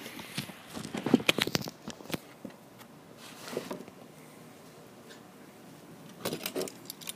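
Quick clicks and light rattles of small plastic and metal hardware being handled, a cluster in the first two seconds and a few more near the end: light switches being picked up and turned over.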